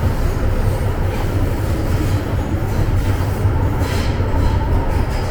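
MTR Island Line M-train running between stations: a steady, loud rumble of wheels on rail, with a brief brighter hiss about four seconds in.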